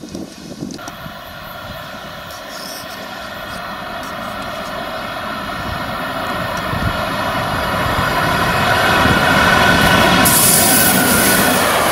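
Electric locomotive hauling a freight train of empty open wagons through a station, a steady whine with several tones growing steadily louder as it comes near. From about ten seconds in, the hiss and rumble of the wagons rolling past joins it.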